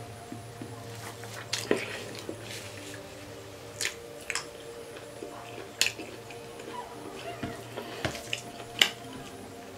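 Eating sounds: cutlery clinking against a plate about six times, short sharp clinks spread through, over a faint steady hum.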